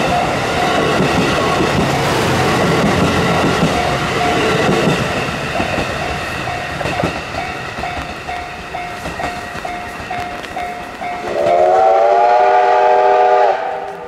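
Coaches of a steam-hauled passenger train rumbling and clacking past, fading as the train pulls away, while a railway level-crossing warning bell rings about twice a second. Near the end a steam locomotive's whistle gives one long blast of about two seconds, then cuts off sharply.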